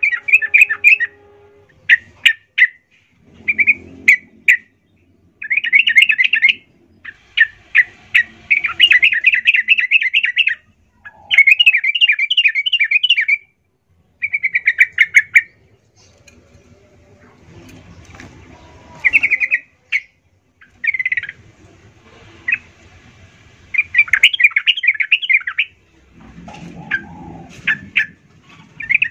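Yellow-vented bulbul (trucukan) in full song, repeating bursts of rapid bubbling chirps with short pauses between phrases.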